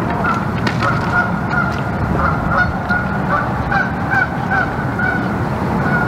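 A flock of Canada geese honking, many short calls several a second, over a steady low rushing noise.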